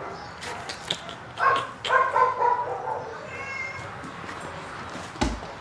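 Domestic cat meowing, a few short calls about one and a half to two and a half seconds in, with a fainter high call after them and a short knock near the end.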